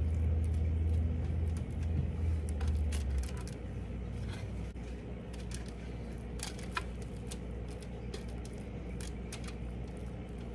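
A low steady hum, louder for the first three seconds and then dropping, under scattered faint crinkles and taps of aluminium foil as hands press chicken-and-cheese mixture into fingers on a foil-lined baking tray.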